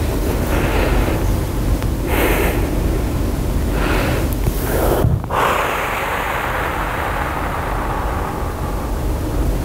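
An actor breathing hard, with several sharp, noisy breaths in the first five seconds as she moves through physical gestures. After that comes a steadier hiss, all over a constant low room rumble.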